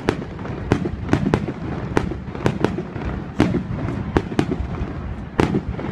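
Aerial fireworks shells bursting overhead, about a dozen sharp bangs in quick, irregular succession over a steady low rumble.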